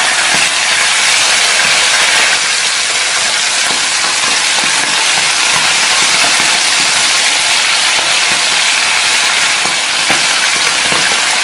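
Small salted fish, still wet from washing, frying in hot oil with a loud, steady crackling sizzle. From about halfway through, a silicone spatula stirs them through the oil.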